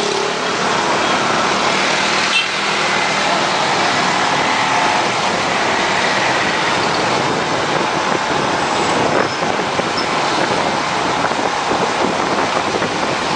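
Steady traffic noise of motorbikes and cars on a congested street, heard from among the moving traffic as an even rushing noise.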